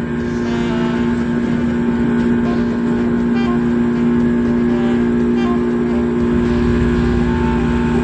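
A fishing boat's engine running steadily while underway, an even hum with no change in pitch.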